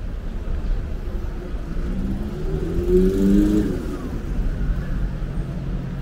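City street traffic: a steady low rumble, with one vehicle's engine passing close and swelling to its loudest about three seconds in.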